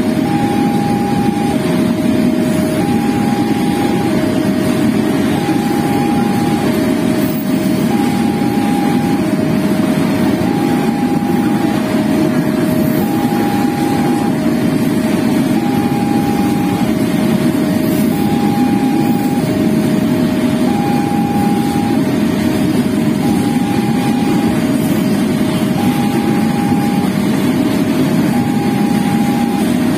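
Level-crossing warning alarm sounding a steady electronic two-tone chime, alternating high and low in a regular loop, over the continuous rumble and clatter of a freight train's container wagons rolling past on the rails.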